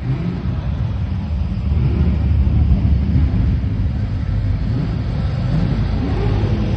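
Low engine rumble of classic cars rolling slowly past, first a custom grey coupe and then a white Ford Falcon ute. It grows louder about two seconds in as the ute comes close.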